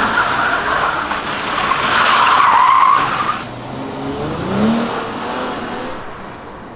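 Car tyres squealing, loudest about two to three seconds in and then fading, followed by a brief rising engine note.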